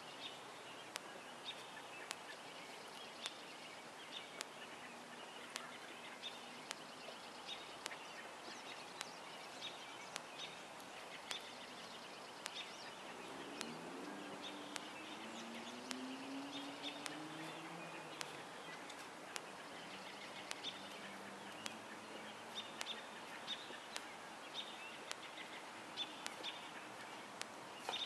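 Quiet outdoor ambience with birds chirping in short, repeated calls throughout. About halfway through, a faint low hum rises and wavers for several seconds.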